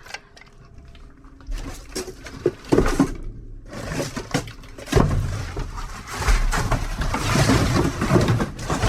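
Scrap being handled and broken apart in a dumpster: scattered knocks and scrapes, becoming a denser run of clattering and rustling from about five seconds in.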